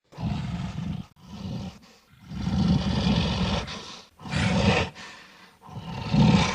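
Tyrannosaurus rex roar sound effects: a run of about five deep, rasping roars with short gaps between them. The longest, in the middle, lasts about a second and a half.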